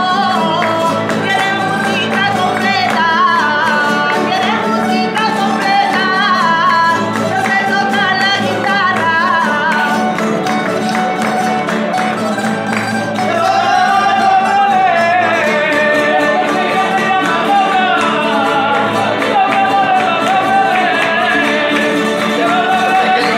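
A woman singing a wavering, ornamented melody over guitar accompaniment, with several people clapping along in rhythm.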